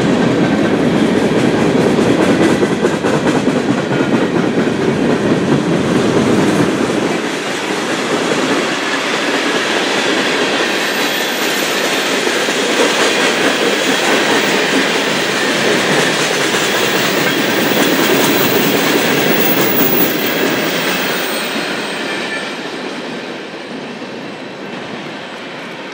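Freight train cars rolling past close by, centerbeam flatcars and then boxcars, steel wheels running on the rail. The sound fades near the end as the last car goes by.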